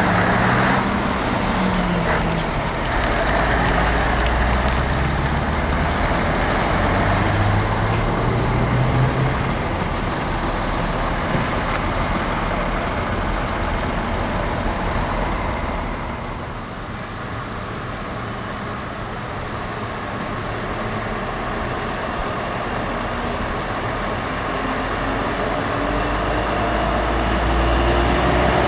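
Diesel truck engines maneuvering in a freight yard. A Scania 3-series truck revs up and down at first. Engine noise eases off midway, then a Volvo FH pulling a drawbar trailer approaches, its engine note rising steadily as it accelerates near the end.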